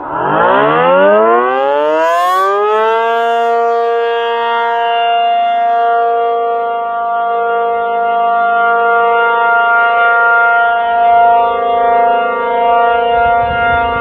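ACA Penetrator-50 tornado siren starting its alert signal: it winds up from a low growl to full pitch over about three seconds, then holds a steady chord from its 8/12-port chopper, swelling and fading gently as the rotating horn turns. It sounds at full strength, properly wired and no longer reverse wired.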